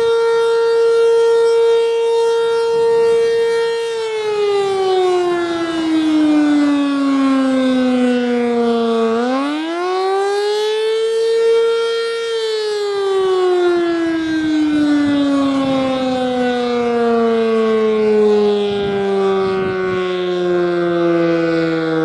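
ACA Banshee 115 outdoor warning siren sounding a loud test tone with many overtones. It holds steady for the first few seconds, then falls in pitch, swings back up to the starting pitch near the middle, and slowly falls again toward the end.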